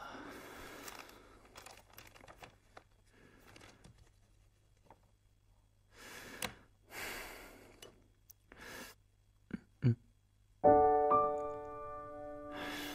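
Faint rustling and brief soft noises over a low hum. At about ten seconds in, background music enters with sustained piano chords.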